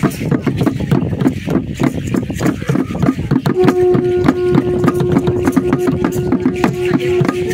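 Ceremonial frame drum beaten in a quick, even rhythm for a circle dance. About halfway through, a long steady blown note, like a horn's, comes in and is held to the end.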